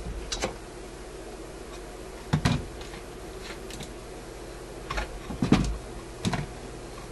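A few scattered light clicks and knocks of wires and small hand tools being handled on an electronics workbench, over a steady low hum.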